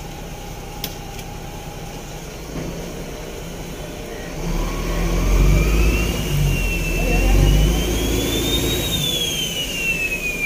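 A boat's large diesel engine starts about four and a half seconds in and runs with a deep rumble, revving up and down. A high whine rises and then falls with it.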